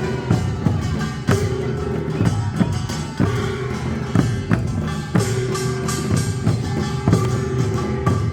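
Korean traditional folk music from a percussion ensemble: drums and gongs strike a steady beat about once a second, over a held tone that returns about every two seconds.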